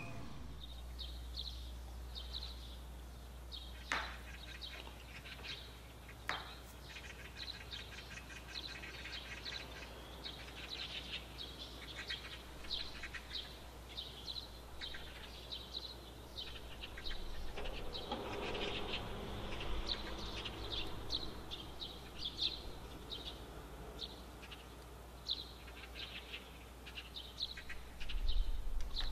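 Small birds chirping again and again over a steady low hum, with two sharp knocks about four and six seconds in.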